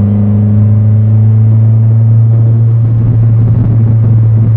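Exhaust drone heard inside the cabin of a turbocharged D16 Honda Civic running without a muffler: a loud, steady, low hum as the car cruises at constant engine speed. It is the resonance of the open exhaust that the owner finds really annoying at about 3,500 rpm.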